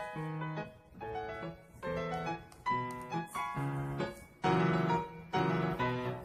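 Background piano music, chords struck about twice a second, loudest about two thirds of the way through.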